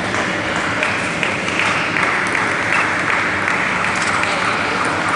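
Applause from spectators in a large sports hall, swelling about a second in and holding steady for several seconds.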